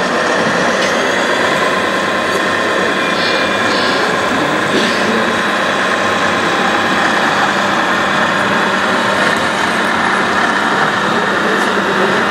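Steady mechanical running of a radio-controlled scale tipper truck's hydraulic tipping gear as the raised tipper body lowers, with a faint steady whine.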